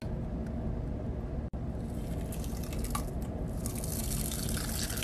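A special-effects mouth piece of beads sealed in dried Mod Podge being peeled off the skin: a sticky, wet crackling that starts about two seconds in and grows stronger toward the end.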